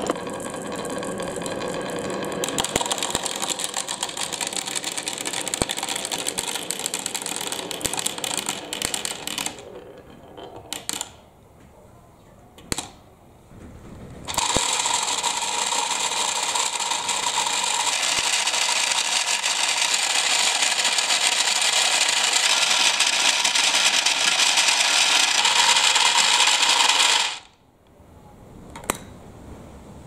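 Marbles rolling and clattering down a wooden wave-track slope, a dense run of clicks that thins out about nine seconds in. From about fourteen seconds a toy mini washing machine runs with a steady whir and a held tone, churning marbles in water, and cuts off near the end.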